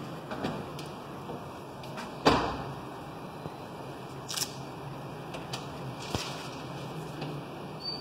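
Scattered knocks and clicks, one much louder knock a little over two seconds in, over a low steady hum.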